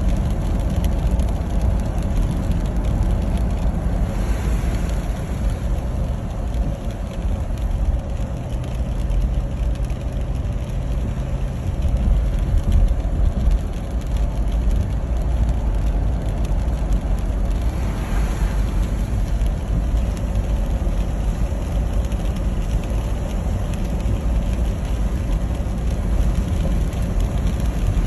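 A car driving along a road: a steady low engine and road rumble.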